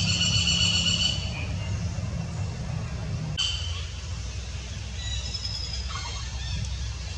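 Baby macaque squealing: a high, thin squeal for about a second at the start and a shorter one a little after three seconds, with fainter high calls later. A low engine hum runs underneath and stops about three seconds in.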